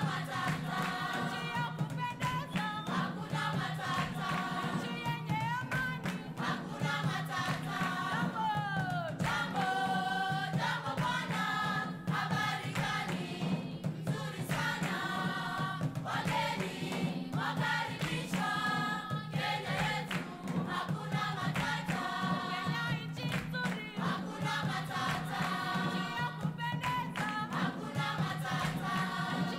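Background music: a choir singing over a steady low drone.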